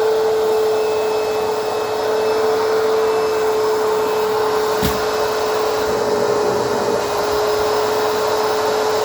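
Backpack vacuum cleaner running at full speed: a steady motor whine over a rush of air. A single short click about halfway through.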